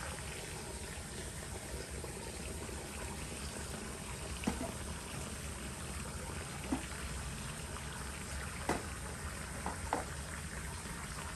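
Water running from a garden hose into a plastic basin as it fills, a steady splashing trickle. A few brief clicks sound about halfway through and near the end.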